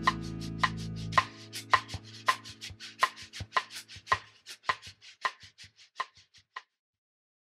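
Background music at the end of a track: a guitar chord dies away in the first second, then light, evenly spaced clicking percussion at about four ticks a second fades out and stops, leaving silence near the end.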